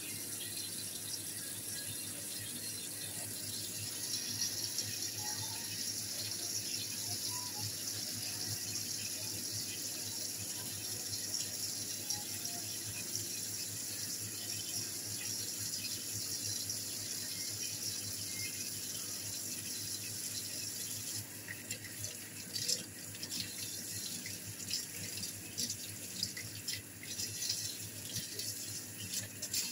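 Kitchen faucet running steadily into a stainless steel sink while a plastic part is rinsed under the stream. About two-thirds of the way through, the stream turns uneven and splashy as the part is worked in the flow.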